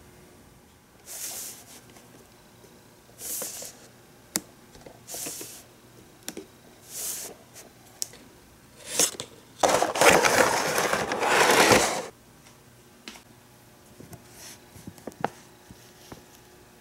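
Hands handling a toy figure's cardboard box and plastic packaging: a run of short scrapes and rustles with a few sharp clicks, and a longer, louder rustle about ten seconds in.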